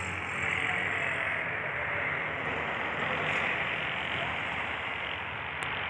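Steady vehicle noise, a low rumble under a broad hiss, heard from inside a truck cab, with one small sharp click near the end.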